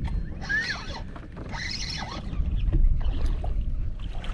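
Water splashing against a bass boat's hull in short bursts every second or so, over a low rumble that swells about two and a half seconds in.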